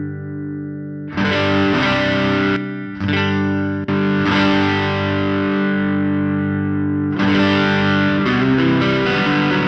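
Electric guitar chords strummed through the NUX Ace of Tone dual overdrive's Tube Screamer-style side, drive at noon, into a clean Jazz Chorus amp model: a distorted tone with a lot of drive. Four strums, about 1, 3, 4 and 7 seconds in, each left to ring.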